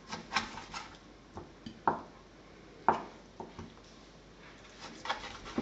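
Ceramic knife knocking against a cutting board while soaked stockfish is cut and the pieces are shifted, giving a handful of separate sharp knocks and clicks, the loudest about two and three seconds in.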